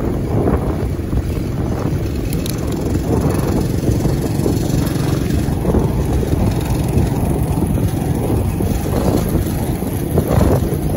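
Steady wind rumble on the microphone of a moving bicycle, mixed with street traffic noise.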